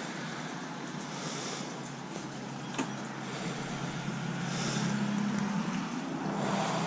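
Wind rushing over the microphone, with a low engine hum of a passing vehicle swelling about four to six seconds in. A single sharp click about three seconds in.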